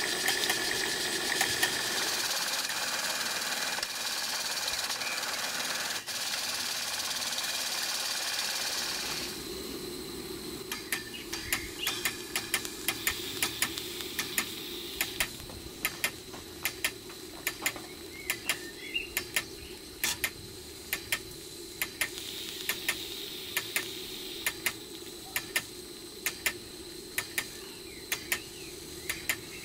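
Twin-cylinder model marine steam engine and its steam-powered boiler feed pump running steadily with 50 psi of steam pressure, with a steady hiss. About nine seconds in the sound changes to a run of sharp clicks, about two a second, over a steady low hum.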